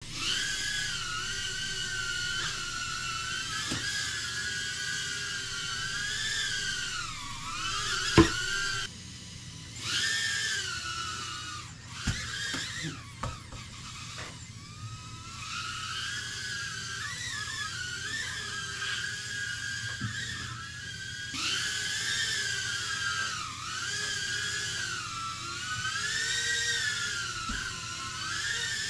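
Emax Tinyhawk 2 micro FPV drone's brushless motors whining, the pitch rising and falling with the throttle as it flies. About eight seconds in there is a sharp knock and the motors stop. They spin up again, stop once more around twelve seconds with a few knocks, and start again about fifteen seconds in.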